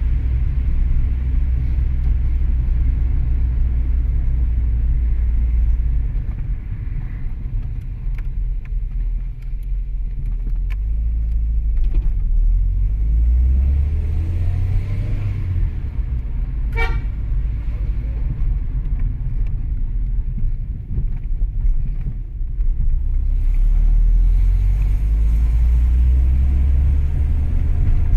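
Car on the road: a steady low engine and road rumble, with a short horn toot about 17 seconds in.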